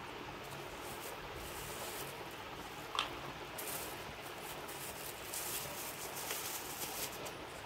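A phone's cardboard box and packaging being handled: rubbing and rustling over a steady hiss, with one sharp click about three seconds in.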